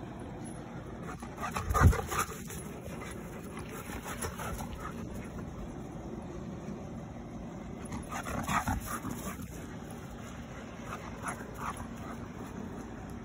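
Dog giving short vocal sounds in a few brief clumps, about two seconds in and again around eight to nine seconds, over steady outdoor background noise. A single loud thump comes about two seconds in.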